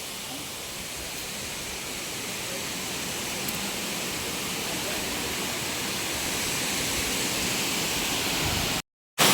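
Waterfall rushing: a steady noise of falling water that grows slowly louder, cutting out for a moment near the end.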